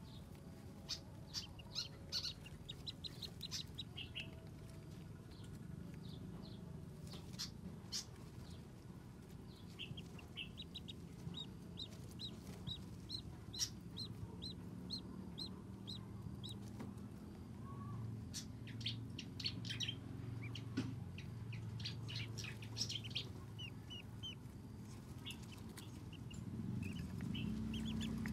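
Ducklings peeping: runs of short, high chirps coming in several bouts, over a low steady hum.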